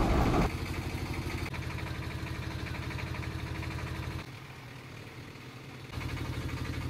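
Boat engine running steadily with a fast, even chugging pulse. The sound drops quieter for about two seconds past the middle and comes back abruptly.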